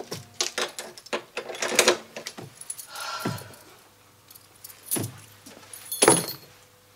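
Keys jangling and clicking in an irregular clatter, with louder knocks about two, five and six seconds in.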